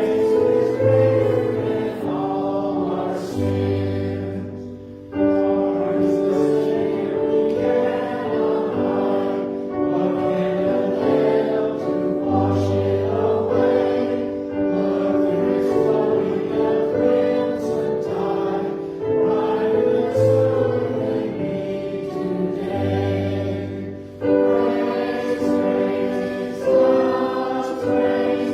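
A choir singing a hymn with accompaniment, in long held chords, with brief breaks between phrases about five seconds in and again near the end.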